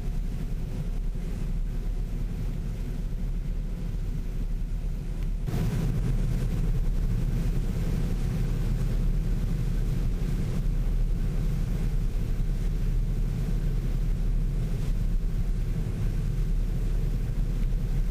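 John Deere 9660 STS combine running while harvesting soybeans: a steady low machine drone that grows louder about five seconds in, then holds steady.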